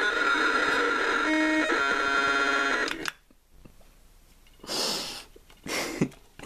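Buddy Big League animatronic talking doll glitching: its speaker blares a garbled jumble of electronic tones for about three seconds, then gives two short hissing bursts near the end. The owner puts the glitching down to a capacitor that broke off across the mouth motor, so the motor's voltage spikes are no longer suppressed.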